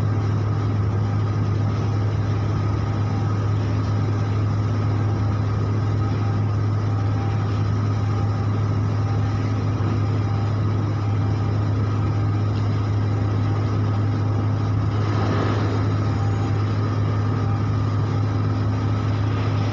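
Ship's diesel machinery running steadily, a constant low hum that does not change in pitch or loudness.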